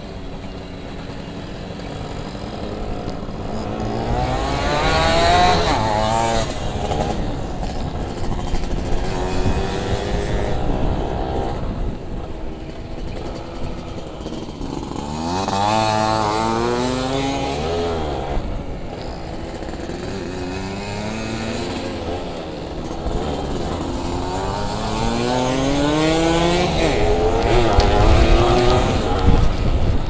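Yamaha F1ZR's two-stroke single-cylinder engine heard from on board while riding. It revs up in rising sweeps three times and drops back off the throttle in between, as the bike accelerates out of turns.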